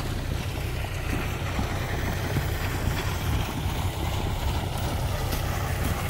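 Tractor engine running steadily, with wind noise on the microphone.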